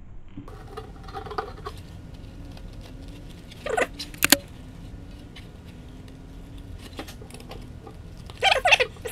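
Hand tin snips cutting sheet steel. The blades give a couple of sharp snaps about four seconds in, then a louder run of rough, squealing, crunching cuts through the metal near the end.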